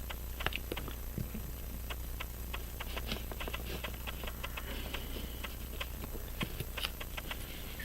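Small, irregular metallic clicks and taps, several a second, from the mainspring barrel, arbor and hand tools of a Hamilton 940 pocket watch being handled while the arbor is worked into the barrel against the off-centre spring.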